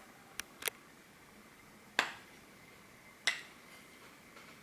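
Five sharp clinks of tableware, spaced irregularly, with the loudest about two seconds in.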